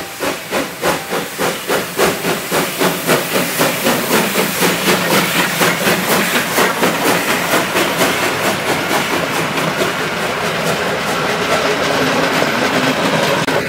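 Pt47 steam locomotive working hard as it passes, its exhaust chuffing in an even beat of about three a second that quickens slightly, with hissing steam. Later the separate chuffs blend into a steady rush of the passing train, and the sound cuts off at the end.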